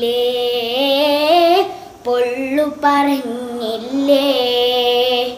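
A young girl singing a Malayalam Mappila song solo, holding long notes with wavering ornaments, with a short break about two seconds in.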